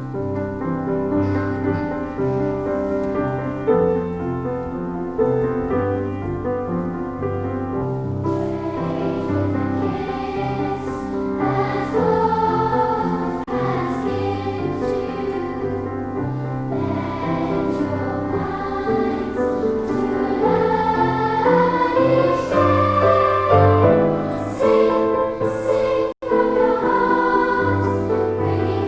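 Choir singing a hymn with instrumental accompaniment, with a momentary dropout near the end.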